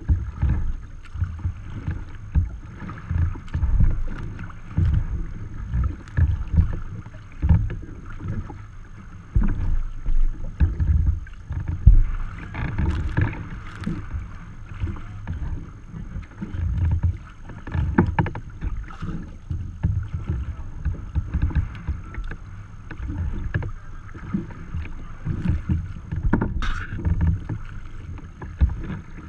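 Wind buffeting the microphone of a camera on a sea kayak's bow deck, in irregular gusts, over choppy water lapping and splashing against the hull.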